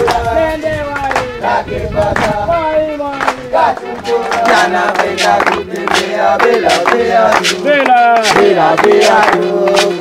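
A group of people singing together, with rhythmic hand-clapping.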